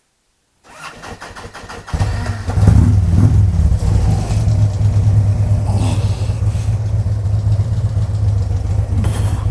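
Harley-Davidson V-twin motorcycle engine being started: the electric starter cranks for about a second, the engine catches about two seconds in and flares up briefly, then settles into a steady idle.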